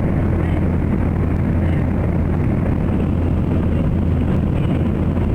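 Airplane engine drone heard from inside the cabin in flight: a loud, steady, low rumble with no change.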